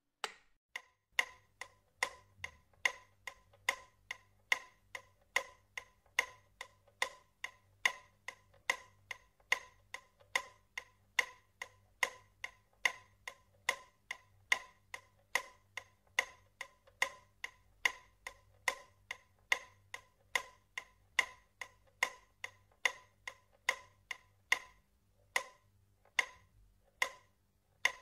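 Steady, clock-like ticking, each tick short and slightly pitched, about two and a half ticks a second, slowing to under two a second near the end.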